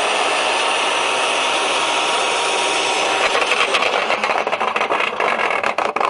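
A garden shredder runs steadily. From about three seconds in, a thick piece of plum branch is chewed up by the cutters with a quick run of cracks and crunches.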